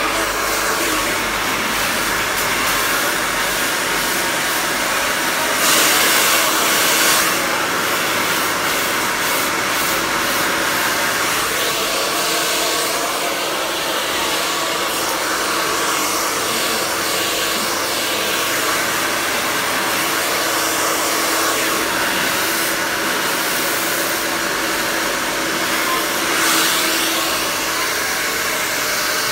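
Handheld hair dryer running steadily as hair is blow-dried: a continuous rush of air over a steady motor hum, growing louder for a moment about six seconds in and again near the end.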